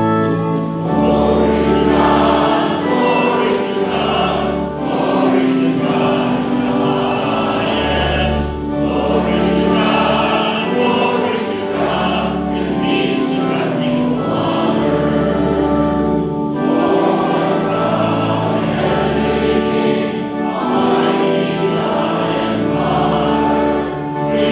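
Congregation singing with church organ accompaniment: held organ chords and low pedal notes changing every couple of seconds under the voices.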